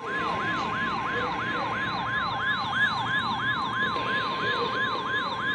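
Weather-alert alarm: the steady NOAA Weather Radio 1050 Hz warning tone, with an electronic yelp siren over it sweeping up and down about three times a second. This alarm is the signal that a warning is about to be read.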